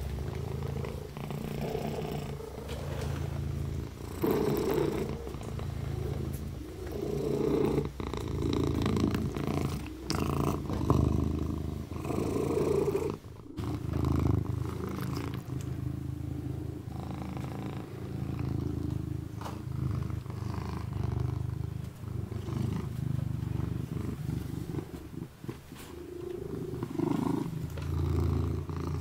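Kitten purring close up, a steady low rumble that swells and fades every second or two, with soft licking clicks as it washes its paw.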